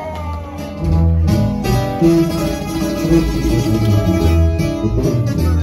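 Live band of tuba and guitars playing a tune, the tuba carrying the bass notes under plucked guitar strings. It gets louder about a second in.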